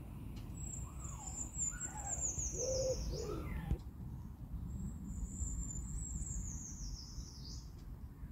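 Songbird singing: two long, high, thin songs a second or so apart, each falling steadily in pitch over about three seconds, with a few lower chirps during the first, over a low steady rumble.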